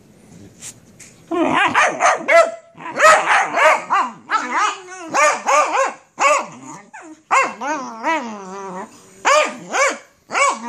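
Dogs play-fighting, a beagle and a Labrador puppy: a quick run of barks and growls starting about a second in and going on without a break.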